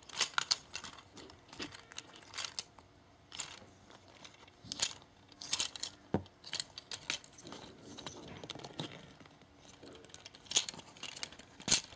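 Hard plastic parts of a Transformers Deluxe Class Ratchet action figure clicking and clacking irregularly as its panels and joints are turned and flipped by hand.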